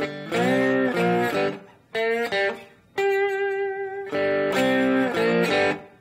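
Electric guitar in open G tuning playing a slow slide blues riff twice. Each time it slides up into notes on the middle strings, plays a short figure, then rings a held open-string note.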